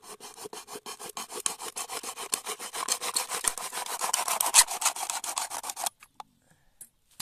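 Machete blade drawn rapidly back and forth in a fast run of scraping strokes, about eight to ten a second. The strokes grow louder toward the middle and stop abruptly about six seconds in.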